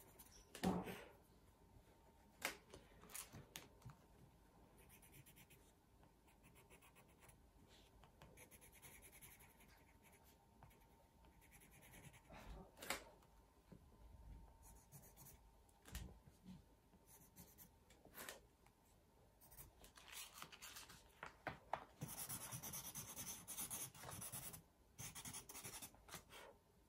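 Faint scratching of coloured pencils on drawing paper, with a few light clicks, and a louder stretch of brisk rubbing strokes about three quarters of the way through.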